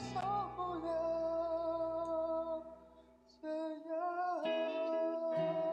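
Background music: a song with a held, gently wavering sung melody over guitar, fading briefly about three seconds in and then coming back.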